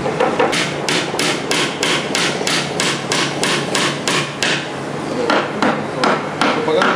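Hammer driving a small nail into a laminated particleboard panel: a fast, even run of taps, about four a second, then a short pause and a few more blows near the end.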